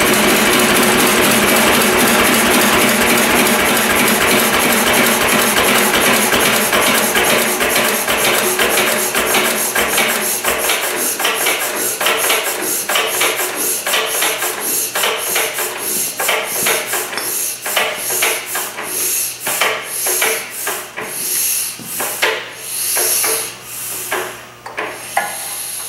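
A 10 HP single-cylinder Lister-type diesel flywheel engine (Ashwamegh Lister clone) with its generator head, shut down and coasting to a stop. The steady running breaks into separate clunks on each turn of the flywheel, and these slow gradually to about one a second near the end.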